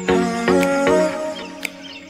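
Background music: sustained chords over a steady bass note, with new notes coming in about every half second and a couple of sharp clicks.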